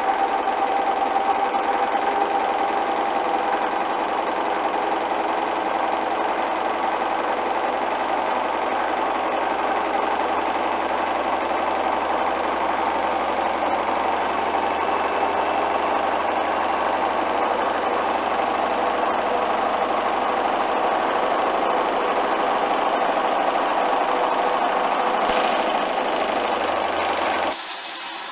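Washing machine running with a steady mechanical hum and a high motor whine that climbs slowly in pitch, as when the drum spins up. Near the end the whine dips and the sound drops away abruptly.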